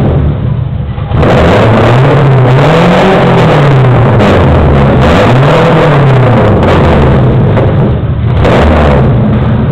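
Ford Maverick GT4's engine running loud and being revved: its note rises and falls twice in slow swells, with a shorter blip near the end, between spells at a lower speed.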